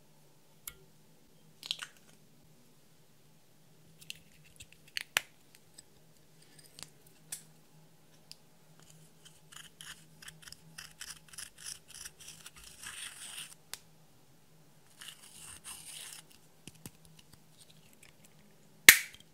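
A pointed tool scraping and crumbling pressed powder eyeshadow in a plastic compact, in quick repeated strokes, then a shorter second bout. Light clicks of handling come before it, and a sharp loud click near the end, the compact snapping shut.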